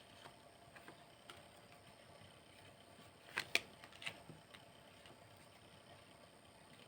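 Tarot cards being handled: a few faint, short snaps and slides as a card is pulled and laid down, the clearest pair about three and a half seconds in and one more just after.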